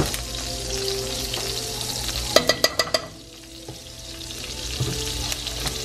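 Butter melting and sizzling in hot olive oil in a frying pan, a steady frying hiss. A little past two seconds in comes a quick run of about six sharp, ringing clinks, after which the sizzle drops briefly and then picks up again.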